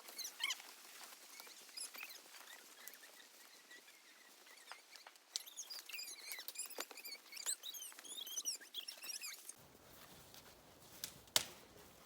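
Small birds chirping in a quick series of short, high, up-and-down notes, with scattered sharp clicks and one louder click near the end.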